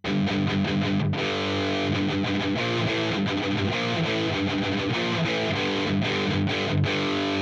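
Distorted electric guitar riff played through the Audiority L12X, a free plugin modelling a Marshall JCM-style solid-state amp head, into a Mesa 4x12 cabinet impulse response. It starts abruptly, with brief breaks about a second in and again near six and a half seconds.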